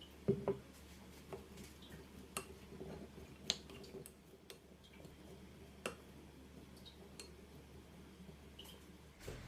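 Light kitchen handling sounds: a soft double knock about a third of a second in, then a scattered handful of sharp clicks and taps of utensils against dishes.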